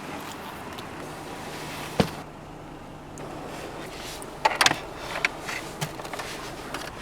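Inside a car, a steady low engine and road hum, with a single knock about two seconds in and a cluster of short clicks and knocks about four and a half seconds in.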